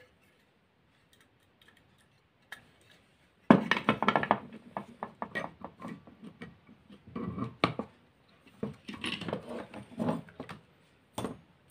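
Clinks and knocks of the metal and plastic parts of a vacuum cleaner motor being handled during disassembly. It is nearly quiet for the first few seconds apart from one small click; a sharp knock comes about three and a half seconds in, followed by irregular clatter and clicks.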